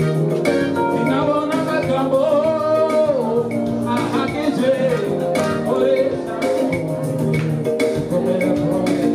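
Music with a steady, quick beat, guitar and a singing voice that wavers and bends in pitch.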